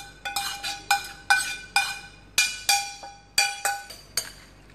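Metal spoon clinking against a stainless steel frying pan as sautéed ingredients are scraped out of it: about ten sharp strikes, roughly two a second, each leaving a short metallic ring.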